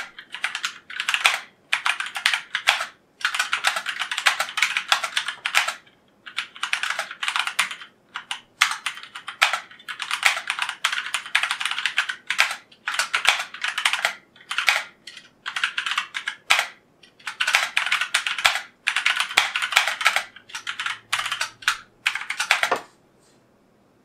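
Drevo Calibur 71-key mechanical keyboard being typed on: rapid runs of key clicks in bursts of a few seconds with short pauses between them, stopping about a second before the end.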